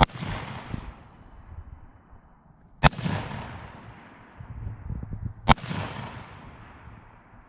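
Three AR-15 rifle shots in slow fire, about two and a half seconds apart, each followed by a long echo that rolls off.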